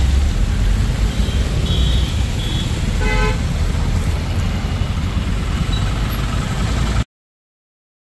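Road traffic with a steady low rumble, and a vehicle horn honking briefly about three seconds in. The sound cuts off suddenly near the end.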